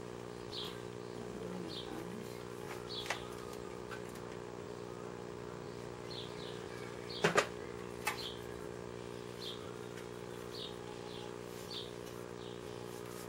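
Vacuum cleaner motor running with a steady hum. Short bird chirps come and go over it, and two sharp knocks fall just past halfway.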